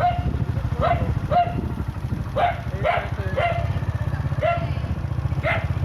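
A dog barking repeatedly, about nine sharp barks at uneven intervals, over a steady low rumble.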